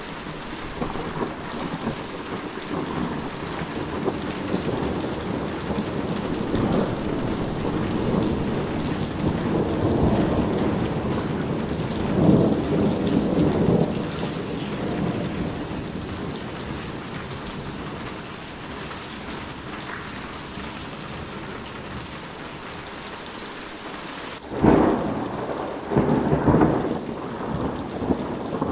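Heavy rain falling steadily under a thunderstorm. A long roll of thunder swells through the first half and fades, then a sudden sharp thunderclap near the end is followed by another rumble.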